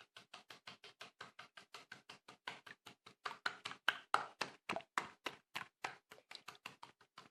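Silly Sludge toy slime being squeezed and worked by hand: a fast, even run of short wet squelches, about five or six a second, louder in the middle.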